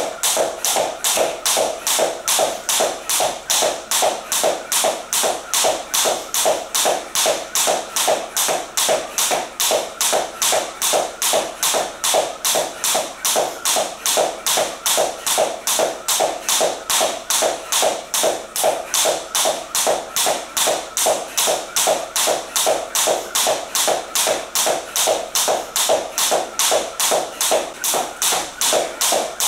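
Jump rope skipping: a thin cable speed rope slapping a wooden floor with each turn while sneakers land, in a steady run of sharp taps about three times a second.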